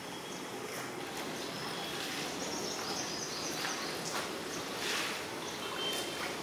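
Water sloshing and splashing as raw chicken pieces are washed by hand in a large steel basin and lifted out dripping, with irregular splashes over a steady background noise.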